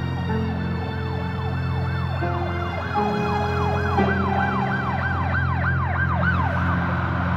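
An emergency-vehicle siren in a fast yelp, its pitch sweeping up and down about three times a second, strongest shortly before the end and then fading, over a low, sustained drone of dark music.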